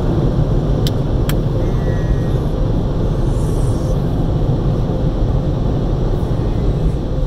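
Automatic car wash machinery running, heard from inside the car: a loud, steady rumble with a faint hum, and two short high clicks about a second in.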